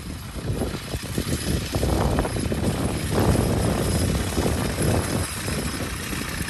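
Horse-drawn sickle-bar mower clattering as a team of draft horses pulls it through the hay, over a heavy low rumble that swells from about two seconds in.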